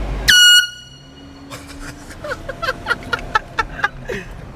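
A prank air horn sounds in one short, very loud blast a moment in, about a third of a second long, on a single high steady pitch that jumps up at its start.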